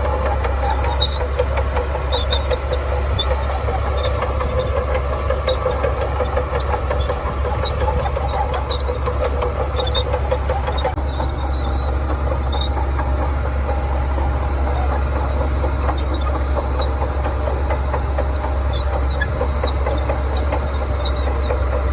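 Shantui bulldozer's diesel engine running steadily, with faint scattered high clicks over it; the engine tone eases slightly about halfway through.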